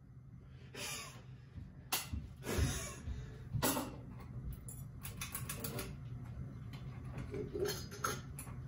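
Scattered knocks and bursts of rapid clicking from hard objects being handled and bumped together.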